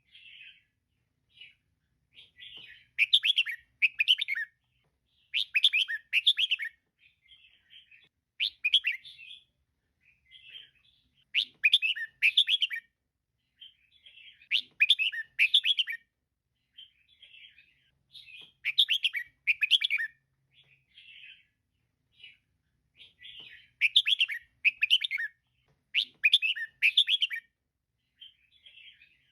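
Female red-whiskered bulbul calling: short bursts of quick chirping notes, the louder phrases coming about every three seconds, with softer chirps in between.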